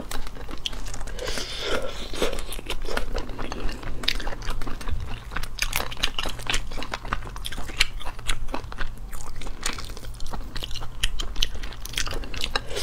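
Boiled mantis shrimp shells cracking and crackling as they are peeled apart by hand, mixed with chewing, close to the microphone. There are many sharp crackles throughout.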